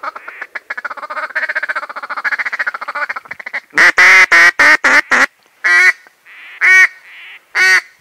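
A hen duck, a live mallard-type decoy, calling. It makes a fast chattering run for about three seconds, then a string of about seven loud quacks, then three single quacks about a second apart.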